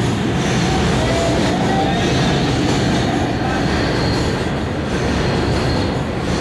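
Loud, steady rumble of subway train noise echoing in an underground station, with a faint squeal about one and a half to three seconds in.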